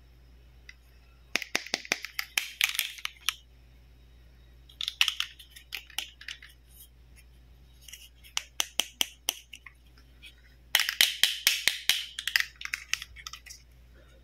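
Fingers tapping and handling a plastic toy stethoscope, in four bouts of quick plastic clicks and taps.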